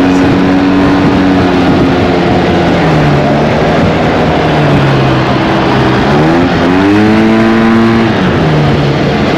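Yamaha Tmax maxi-scooter's parallel-twin engine running under way, with steady wind rush on the microphone. Its pitch drops about three seconds in, rises as the throttle opens around six seconds, then falls again about eight seconds in.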